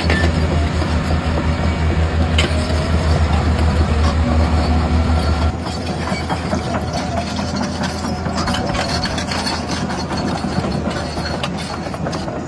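Radio-controlled model truck running, with a steady low engine-like drone that drops noticeably in level about halfway through, as the truck eases off.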